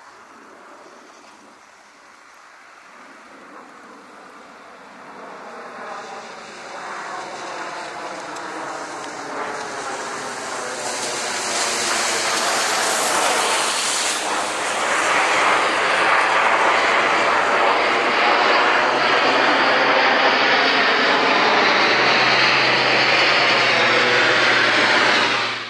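An Airbus A400M's four turboprop engines at climb power as it climbs away from the runway and passes low overhead. The sound grows steadily louder into a loud drone with a sweeping, phasing tone as the aircraft comes over.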